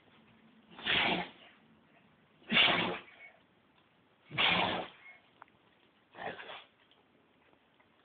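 Doberman sneezing four times in a row, each a short sharp burst about one and a half to two seconds apart; the second is the loudest and the fourth is weaker.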